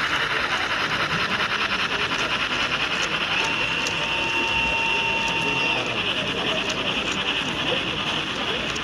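H0-scale model train of tank wagons rolling past on the layout's track, the wheels making a rapid, even clicking. A steady high tone sounds for about two seconds in the middle.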